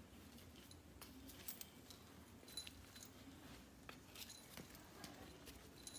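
Faint, scattered soft taps of footsteps in flip-flops on tile and stairs, with a few light jingly clicks.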